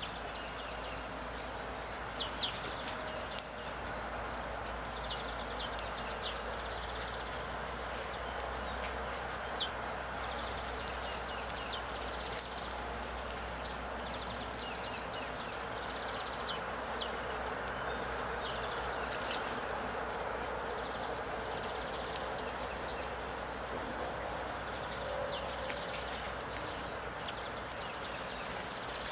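Outdoor background ambience: a steady hiss, with short, high bird chirps scattered throughout. A few sharp clicks stand out, the loudest about halfway through.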